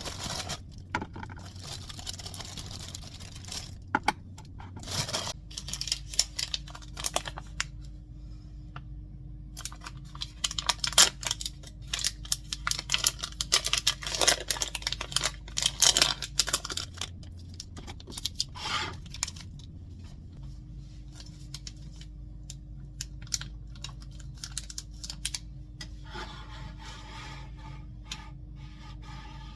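Scattered small clicks, taps and rustles of objects being handled, over a steady low hum that drops out for a few seconds about halfway through.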